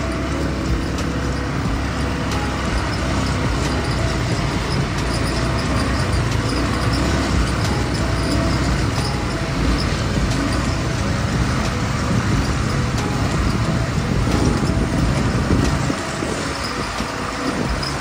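Several ATV engines running steadily as a line of quad bikes rides along a dirt track. The sound dips slightly about two seconds before the end.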